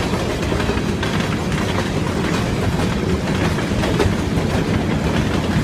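A long CSX freight train rolling past, its wheels clicking over the rail joints against a steady rumble.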